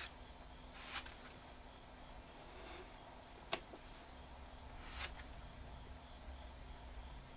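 A wooden spatula scraping and working sabiji lacquer putty on a board: three short scrapes, about one second in, midway (a sharp click) and about five seconds in. A faint steady high-pitched tone runs underneath.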